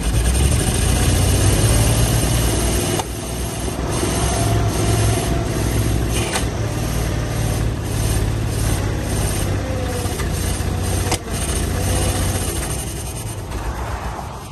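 1953 GMC one-ton truck's inline-six engine running steadily while the hydraulic dump bed raises, with a faint whine over the engine and a few clicks. The sound tapers off near the end.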